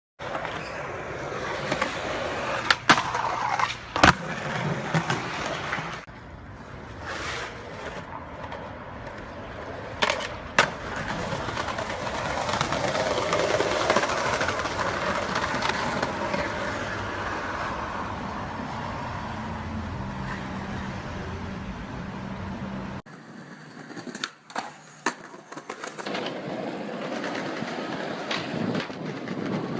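Skateboard wheels rolling over hard ground in a steady rush, broken by several sharp clacks of the board popping and landing. The sound changes abruptly a couple of times as one clip gives way to another.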